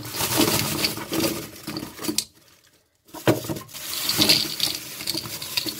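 Plastic-hulled shotgun shells tumbling out of their box onto a mat: a dense rattling cascade in two pours, with a pause of about a second between them.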